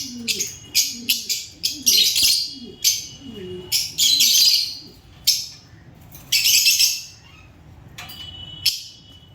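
Lovebirds chirping in loud, harsh, rapid bursts that mostly stop about two seconds before the end.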